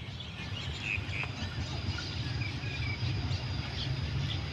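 Small birds chirping in short calls, with a thin steady insect buzz, over a low steady rumble.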